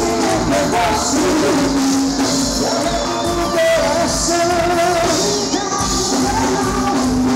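Live forró band playing loud through a big PA, with a lead vocal singing a sustained melody over a steady beat.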